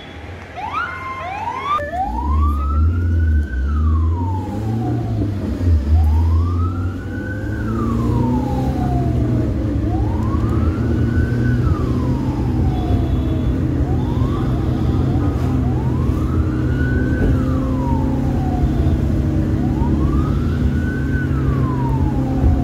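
Ambulance siren wailing over a vehicle engine's steady drone. It starts with a few quick rising sweeps about a second in, then settles into a slow cycle about every four seconds: a quick rise in pitch, then a longer fall.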